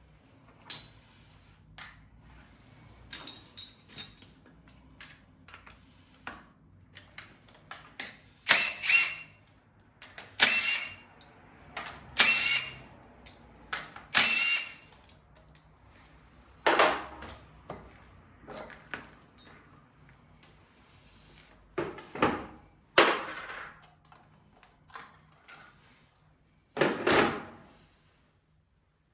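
Tools and metal engine parts clinking and clanking while a seized Yamaha RZ125 two-stroke engine is taken apart. Many separate knocks, some ringing briefly, with a handful of louder rattling stretches of about a second.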